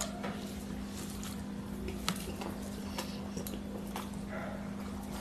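Close-up eating sounds: chewing and mouth clicks, with fingers mixing rice and curry on a plate, as scattered short, sharp clicks over a steady low hum.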